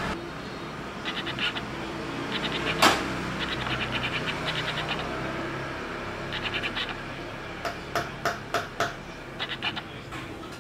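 Metal espresso tools being handled on a portafilter: short runs of rapid, even ticking come several times, with a sharp knock about three seconds in and a string of lighter clicks and taps near the end.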